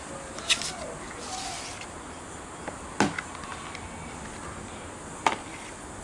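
Three short, sharp clicks or taps, about two and a half seconds apart, the middle one the loudest.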